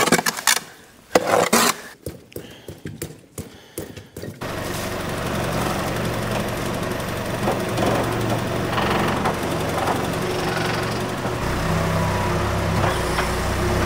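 A few scattered knocks and clatters of hand work at a concrete water trough, then, about four seconds in, a John Deere tractor's diesel engine running steadily as its pallet tines square up the trough, its note getting heavier near the end.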